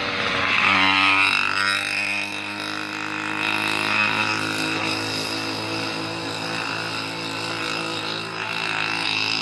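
Mini motorcycle's small engine running as it rides away, its pitch dropping in the first two seconds and then holding steady.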